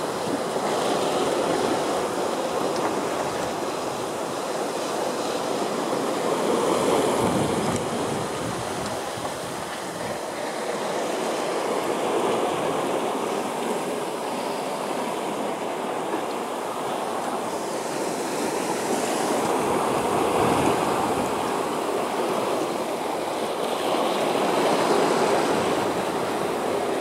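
Water rushing and splashing along the hull of a sailboat under way, mixed with wind. The rush swells and eases every few seconds as the boat rides the waves.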